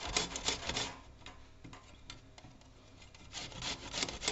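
A carrot being grated by hand on an old flat metal grater, quick rasping strokes several times a second. The strokes pause for about two seconds in the middle and start again near the end.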